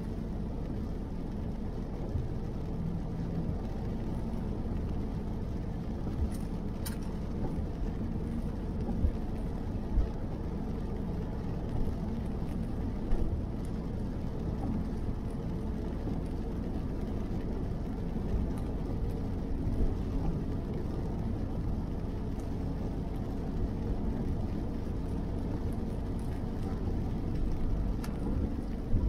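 Steady low road and tyre noise heard from inside a car driving on a wet road in the rain, with a few brief, irregular knocks.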